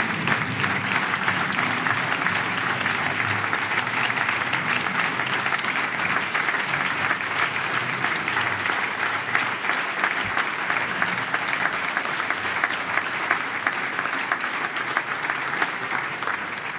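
Audience applauding: steady, dense clapping from a large crowd that eases slightly near the end.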